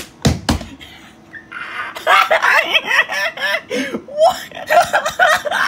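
A few sharp smacks right at the start, then loud, continuous laughter from about a second and a half in, breaking into quick pitched bursts.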